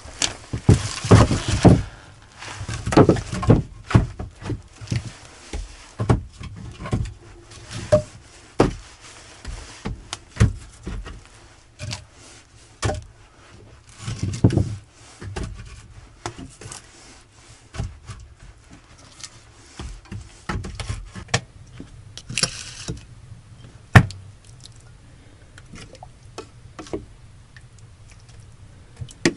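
Irregular knocks, thuds and scrapes of boots on a wooden plank floor and of firewood being handled and split into kindling.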